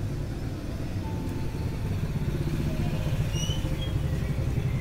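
A motor vehicle's engine, likely a motorcycle, running close by as a low pulsing rumble that slowly grows louder. A few faint high chirps sound about halfway through.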